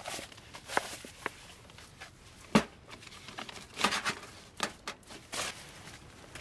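Parts of a take-down steel wood stove being handled and set down on a plastic tarp: a series of short knocks and tarp crinkling. The loudest knock comes about two and a half seconds in.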